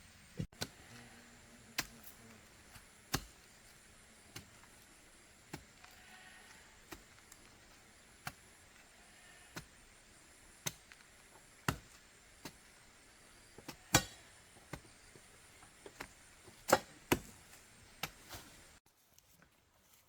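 Hand hoe striking into earth and roots around a tree stump, irregular sharp chops about once a second, a few of them much harder than the rest.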